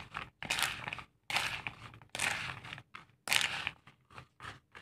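Raw peanuts coated in egg and sugar being stirred with a plastic spatula in a plastic basin: a gritty rattling scrape in repeated strokes, about one a second.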